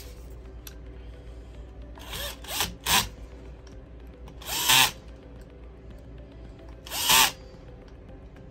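Cordless drill/driver running in several short bursts, each spinning up with a rising whine, as it drives the screws that close the lid of a replacement GFI plug.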